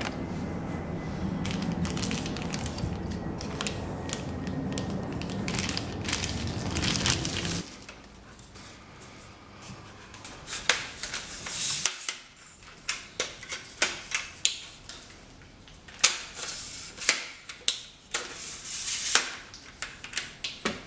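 Clear plastic packaging bag crinkling and rustling, with scattered sharp clicks and knocks from handling the tripod's plastic and metal parts. A steady low background noise under the first third stops abruptly.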